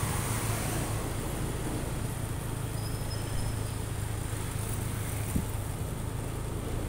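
Small motor-vehicle engine, most likely a motorbike's, running steadily at low road speed, with a brief light knock just past five seconds in.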